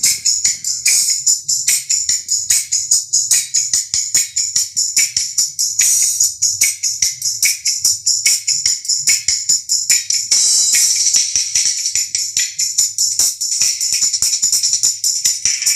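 Music played through an Audio Star AS-200 compression tweeter driver (8 ohm, 1-inch voice coil) fed through a small series capacitor: only the treble comes through, a bright sizzle of cymbals and percussion ticking in a fast beat, with almost no bass.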